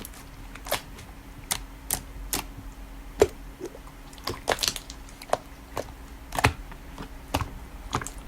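Slime being pressed and squeezed, giving sharp, irregular clicks and pops about two a second, the loudest about three seconds in.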